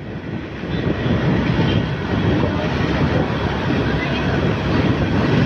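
Riding noise of a moving motorcycle heard from the rider's seat: wind rushing over the microphone with the engine and tyres rumbling underneath, swelling in the first second and then running steadily.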